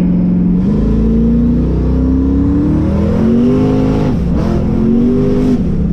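Race car engine accelerating hard from idle in third gear. The pitch climbs from about half a second in, dips briefly around four seconds in, rises again, then falls back as the throttle is lifted near the end.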